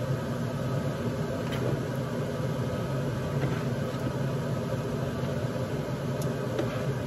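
A steady low mechanical hum, like a motor or fan running, with a few faint clicks as pieces of pork neck bone are dropped into a stockpot of water.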